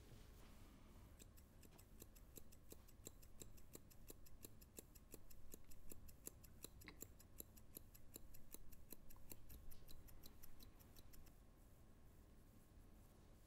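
Hair-cutting shears snipping hair, a quick, faint run of small snips at about three to four a second that stops about eleven seconds in.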